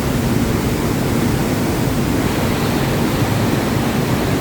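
Cave waterfall, a powerful mountain torrent about 18 metres high crashing down the rocks. The roar is loud and steady, so loud that shouting is needed to be heard over it.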